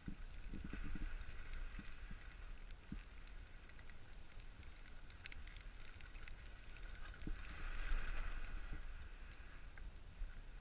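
Skis swishing through fresh powder snow in a run of turns, over a low rumble. The swish swells loudest about eight seconds in.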